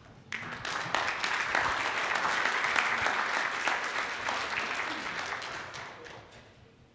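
Audience applauding, swelling quickly at first and then tapering off over about six seconds.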